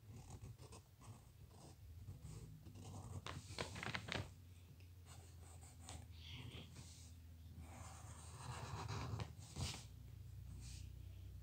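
Faint scratching of a drawing tool tracing lines on paper, in irregular strokes with short pauses.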